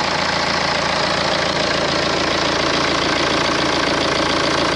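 BMW N47 four-cylinder diesel engine idling steadily, heard close up in the open engine bay.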